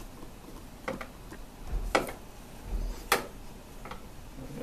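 A few sharp taps, about a second apart, of a stirring stick against the rim of a plastic bucket of liquid screen-printing emulsion, the last two the loudest.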